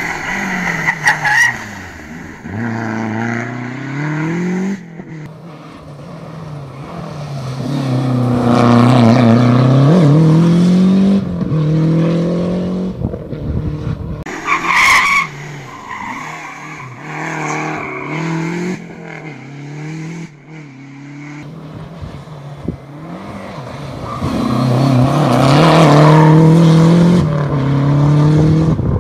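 Lancia Delta Integrale 16V rally cars' turbocharged four-cylinder engines, revving hard and dropping repeatedly as they are driven flat out through the stage's bends. The engine note swells loudest twice, about a third of the way in and again near the end, with a short sharp burst about halfway through.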